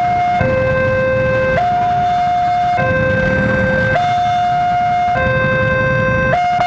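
Railway level-crossing warning alarm sounding with the barrier down, a loud electronic two-tone signal alternating between a low and a high tone about every 1.2 seconds. Under it runs the low rumble of a passing freight train, which thins out near the end.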